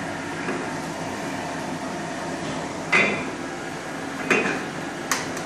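Steady rushing hiss of a gas wok burner on a high flame, with three sharp metal clanks of the wok and utensils: the loudest about three seconds in, then two more close together near the end.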